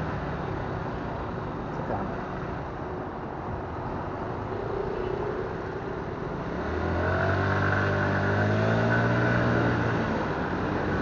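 A motorcycle riding slowly through town traffic, its engine and road noise rumbling steadily. About two-thirds of the way in, an engine hum comes up louder and climbs slowly in pitch as the bike pulls forward.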